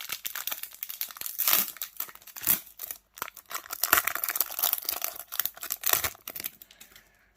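Trading-card pack wrapper crinkling and tearing as it is handled and pulled open, a dense run of crackles that dies away near the end.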